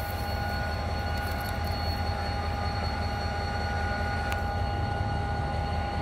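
Diesel locomotive approaching on the line, its engine rumbling low with a steady high-pitched tone held over it.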